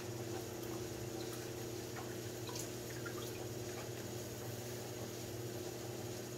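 Electric pottery wheel humming steadily as it spins, with a few faint wet drips and clicks of water and slip from hands working the wet clay of a bowl.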